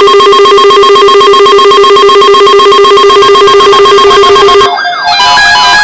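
Weather radio alert tone, loud and distorted with a rapid pulsing buzz, cutting off about three-quarters of the way through. It is followed by a quick run of short stepped electronic notes.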